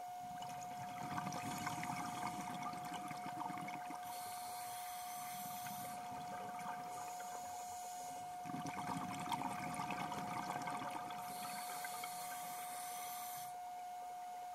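Scuba diver breathing through a regulator underwater: two slow breaths, each a bubbling exhale followed by a hissing inhale, over a steady high whine.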